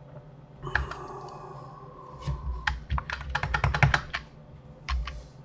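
Computer keyboard being typed on: scattered single key presses, with a quick run of keystrokes about halfway through.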